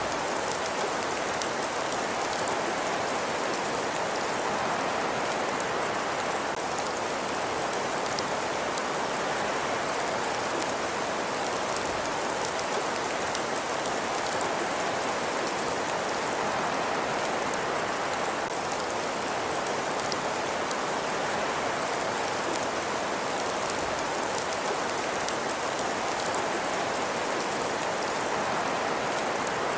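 Steady, even hissing ambience with faint scattered crackles or pattering throughout, in the manner of a looped rain or fireplace soundscape.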